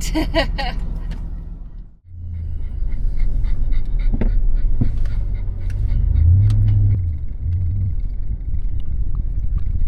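Vehicle driving on a dirt track: a steady low rumble with scattered knocks and rattles.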